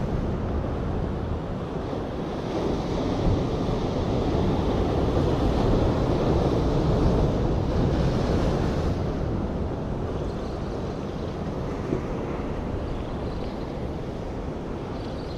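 Sea surf breaking and washing against a concrete tetrapod breakwater, with wind rumbling on the microphone.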